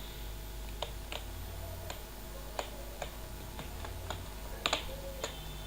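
Light clicks and taps at irregular spacing from a laptop and small tools being handled, with a louder double click near the end. A low, steady hum runs underneath.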